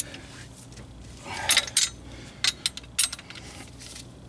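Steel tool parts and bolts clinking and rattling as they are handled and taken off the hub removal tool. There is a cluster of sharp clinks about a second and a half in, then a few more near the three-second mark.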